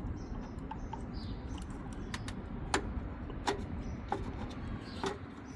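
A few sharp clicks and knocks, about four spread through the second half, as a graphics card is worked out of its PCIe slot against its retention latch, over a steady low hum.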